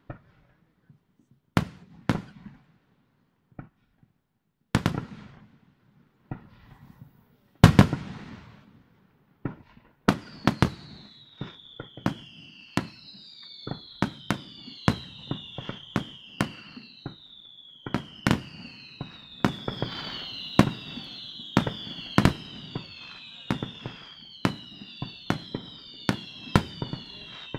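Fireworks display: single shell bursts go off a second or two apart for the first ten seconds. Then the barrage thickens into rapid bangs with many overlapping falling whistles over a continuous rush of noise.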